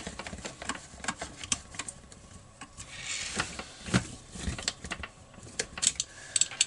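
Handling noise from brush-cutter parts being worked by hand: a string of light clicks and taps from the plastic handle and metal shaft, with a short scraping rustle about three seconds in and a sharper knock about a second later.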